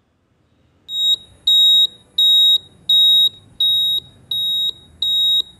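Quiz countdown timer sound effect: a run of about seven short, high-pitched electronic beeps, roughly one every 0.7 seconds, starting about a second in.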